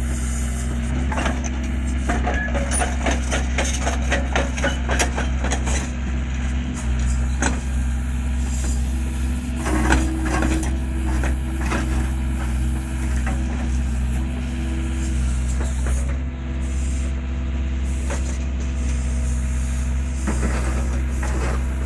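Hyundai R55-7A mini excavator's diesel engine running steadily as the arm digs, with rapid clicks and clatter of the bucket working through stony soil between about one and six seconds in and again about ten seconds in.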